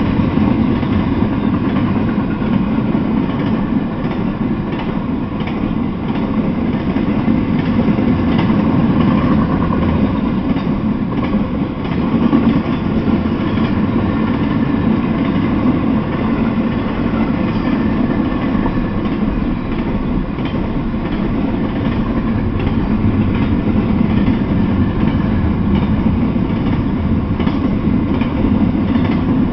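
Double-stack intermodal container freight train rolling past at speed: a steady rumble of steel wheels on rail, with faint scattered clicks from the wheels and cars.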